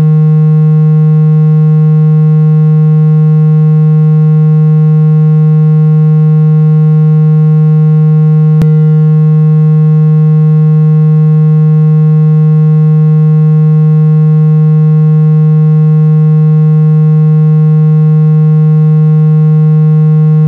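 Synthesized speaker water-eject tone: a loud, steady low tone, rich in overtones, held without change, meant to shake water out of a phone speaker. A brief click about eight and a half seconds in.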